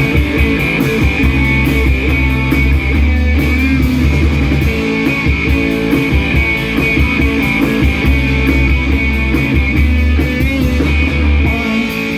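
A live rock band playing a song's instrumental opening: electric guitars, bass and a drum kit keeping a steady beat, with the bass dropping away near the end.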